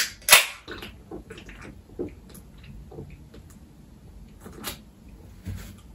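An aluminium drink can being handled and drunk from: two sharp metallic clicks near the start as the pull-tab is worked, then scattered small clicks and swallowing sounds.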